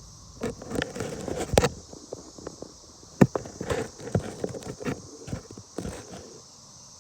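Irregular knocks and rustles, close to the microphone, loudest about one and a half and three seconds in, over a steady high-pitched insect chorus.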